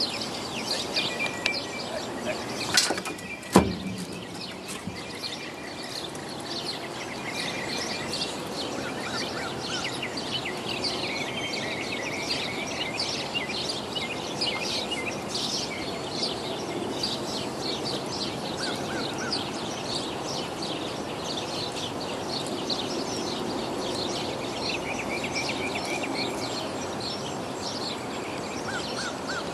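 Many birds chirping over a steady background hiss of open-air noise. About three seconds in come two sharp knocks, a little under a second apart, the loudest sounds here.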